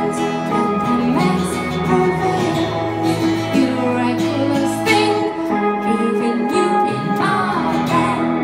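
Live band music: an electric guitar and a second guitar playing sustained chords while a woman sings the lead vocal.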